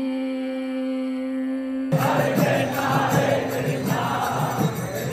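A single held note, then about two seconds in an abrupt change to kirtan: a crowd chanting to a steady beat of drums and hand cymbals.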